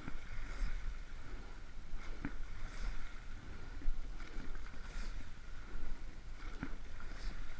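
Sweep-oared rowing boat under way at a steady rate: water running past the hull, with a short knock about every two seconds as each stroke comes round.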